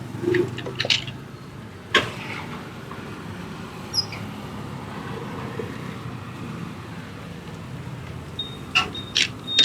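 Steady roadside traffic rumble, with a few sharp taps: one about 2 seconds in, one about 4 seconds in, and three in quick succession near the end. A brief high beep sounds near the end.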